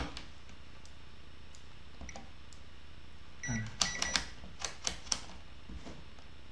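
Digital multimeter being handled and set up for a resistance check. There is a cluster of sharp clicks and knocks from the meter and its test probes, and a couple of very short high beeps from the meter.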